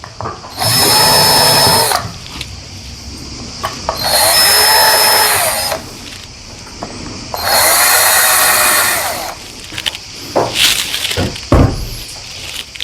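Electric drill with a fine bit run in three bursts of one to two seconds each, drilling a small pilot hole in a chair leg for a glide pad. A couple of short knocks follow near the end.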